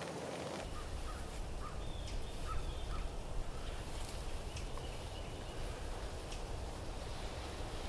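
Woodland ambience: a few faint, short bird calls and scattered light ticks over a steady low rumble.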